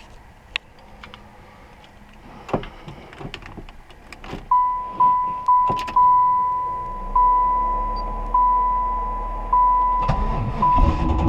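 Clicks and clunks inside a 1995 Camaro Z28, then the dashboard warning chime dinging repeatedly, quickly at first and then slower. Near the end the starter cranks and the LT1 V8 fires up, an engine bought with a rod knock.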